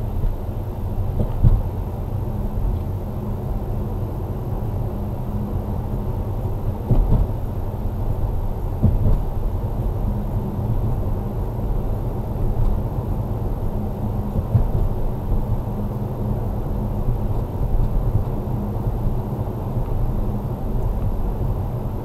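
Car driving, heard from inside the cabin: a steady low rumble of engine and tyres on the road, with a few short knocks from the car going over bumps.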